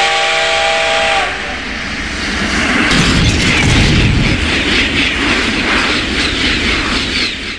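Train horn blast, a held chord of several tones lasting about a second and a half, over the rushing, clattering noise of a train passing, which swells midway and then cuts off abruptly.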